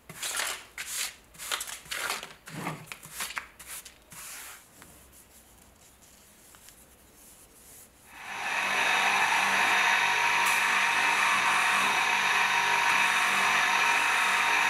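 A paintbrush sweeping sawdust off a sanding disc in quick scratchy strokes. About eight seconds in, an electric bench motor with a buffing wheel starts up and then runs steadily and loudly, with a wooden disc held against the wheel.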